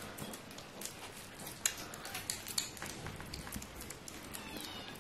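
Kittens lapping and chewing wet food from a saucer: an irregular run of small, wet clicks and smacks, several a second.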